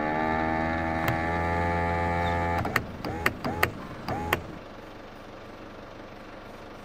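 Electric window motor in a Ford Ranger's door, the faulty window regulator motor, running with a steady whine for about two and a half seconds and then stopping. After it come sharp switch clicks and three short whirs as the motor is pulsed briefly.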